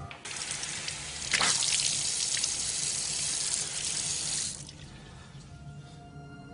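Shower water running and spraying steadily, louder from about a second and a half in, then fading away near the end as soft held music notes come in.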